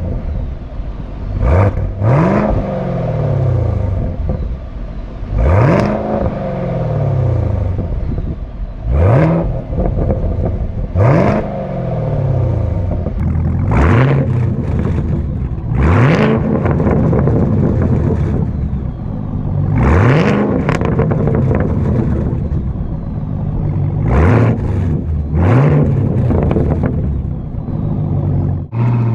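Camaro ZL1's supercharged 6.2 L V8 revved in short blips about ten times. Each time the exhaust note rises quickly, then falls back to a rumbling idle.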